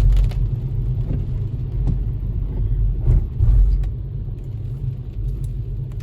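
Low, steady rumble of a road vehicle moving slowly in traffic, engine and road noise, swelling louder twice, just after the start and again about three seconds in.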